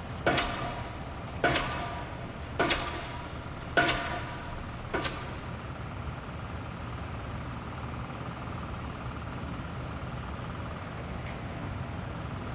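Struck notes ringing out one at a time, evenly spaced a little over a second apart, each fading quickly, over a steady low hum. The notes stop about five seconds in and the hum carries on.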